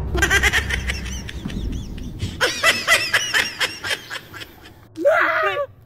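A man's breathy vocal sounds in quick rhythmic bursts, laughter-like, then a short voiced cry about five seconds in.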